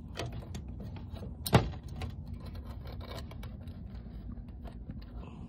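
Small metallic clicks and rattles of a screw and screwdriver bit being handled against the sheet-metal control box of an air handler, with one sharper click about a second and a half in, over a steady low hum.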